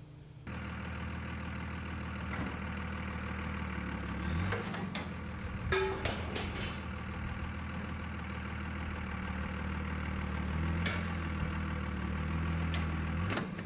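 Second-generation Dodge Ram's Cummins 5.9-litre inline-six turbodiesel running under load as the truck drags a steel shipping container by a chain. The engine note rises about four seconds in and again near the end, with a few metallic clanks in the middle.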